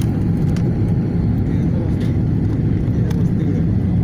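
Jet airliner cabin noise from a window seat during the low approach: a steady, loud rumble of engines and airflow.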